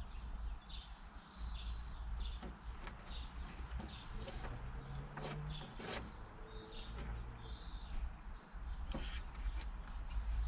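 A small bird chirping over and over, about twice a second, over a low wind rumble on the microphone, with a few knocks.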